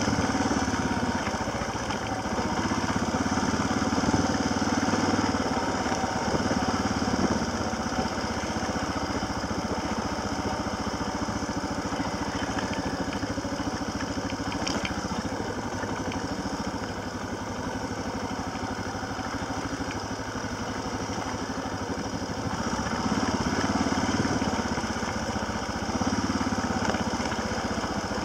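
Small engine of an off-road vehicle, heard from on board as it drives, running steadily and swelling a little louder a few times.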